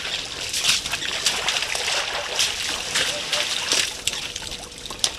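Elephants wading in a muddy waterhole: wet mud and shallow water squelching and splashing under their feet and trunks. The splashes come irregularly, several a second.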